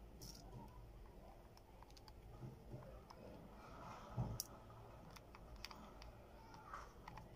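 Faint clicks and light taps of a disassembled Infinix smartphone's plastic frame and parts being handled on a hard workbench, with one sharper click about four seconds in.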